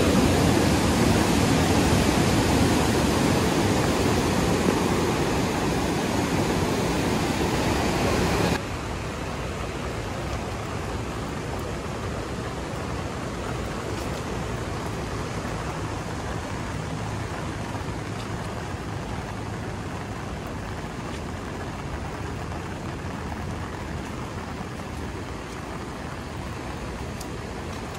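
Water rushing through a dam's spillway channel, a loud steady rush of noise. About eight seconds in it cuts off sharply to a quieter steady outdoor hiss.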